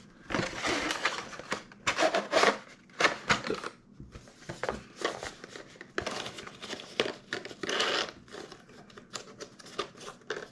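Thin cardboard packaging being handled: irregular rustling, scraping and small clicks as a small retail box is turned over and its flaps are folded.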